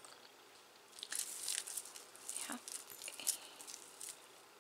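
Beaded necklaces and metal chains of costume jewelry clinking and rattling as they are rummaged through by hand and a tangled multi-strand seed bead necklace is lifted out of the pile. The jingling is a quick run of light clicks that starts about a second in and dies away near the end.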